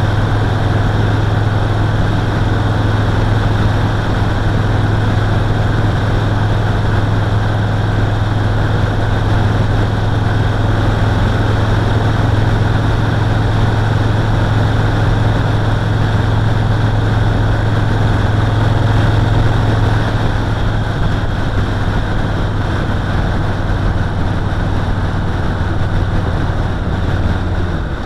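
Yamaha Roadliner motorcycle's V-twin engine running at a steady pitch, under a constant rush of wind and road noise. The engine note dips right at the end.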